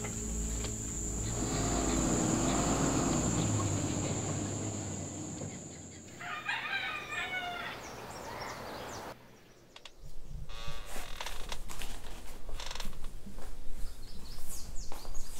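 A rooster crowing once, about six seconds in: one call of about a second and a half, broken into a few parts. It comes after low sustained background tones and a steady high-pitched tone fade out, and it is followed near the end by a run of light knocks and rustles.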